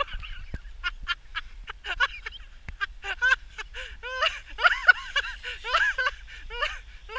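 A person's voice making a quick run of short, high-pitched vocal sounds, each rising and falling in pitch, over a steady low rumble on the microphone.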